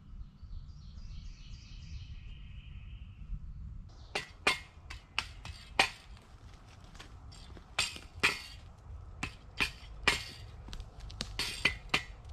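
Dry pine branches and twigs snapping and cracking as a dead, downed pine is worked over by hand. There are about twenty sharp, irregular snaps, starting about four seconds in after a few seconds of low background noise.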